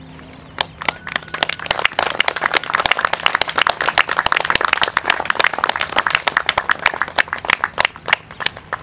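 The last held grand piano chord dies away, then an audience breaks into applause about half a second in; it is thickest in the middle and thins to a few scattered claps near the end.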